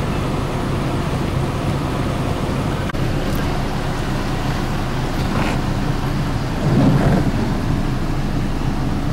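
Car engine running steadily, a low even hum, with a brief louder rumble about seven seconds in.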